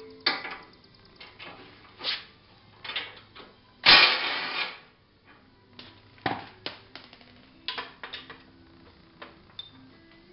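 Tool clicks and metal knocks as the bolts holding a UTV's steel front brush guard are loosened, with one loud rasping burst about four seconds in.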